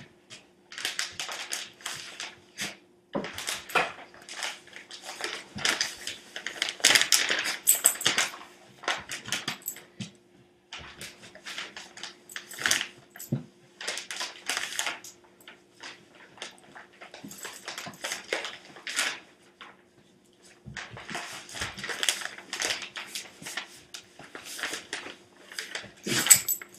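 A large dog moving about and rolling on a rug, making irregular bursts of rustling and clinking with short quiet gaps, over a faint steady hum.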